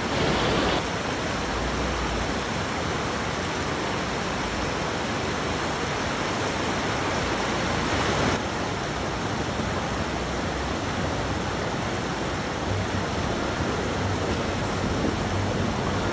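Fast-flowing mountain river rushing over rocks: a steady, even rush of water that shifts slightly about halfway through.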